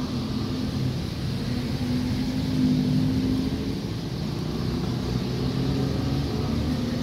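Road traffic: vehicle engines running past, with a steady engine hum throughout.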